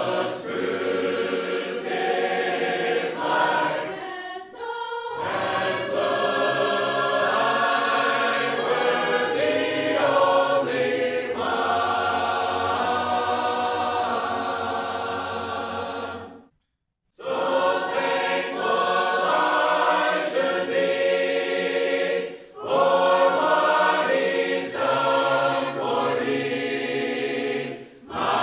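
A church congregation of men's and women's voices singing a hymn together a cappella, with no instruments. The singing stops briefly a little past halfway, between phrases, then carries on.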